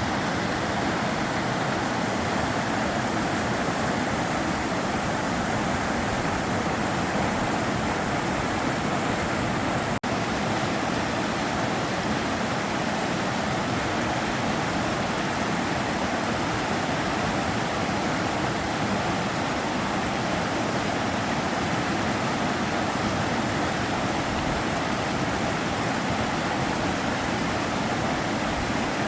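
River water flowing steadily, a continuous even rush, with a split-second dropout about ten seconds in.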